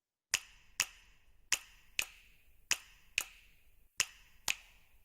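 Eight sharp clicks in pairs, the two clicks of a pair about half a second apart and a new pair about every 1.2 seconds, each with a short ring after it.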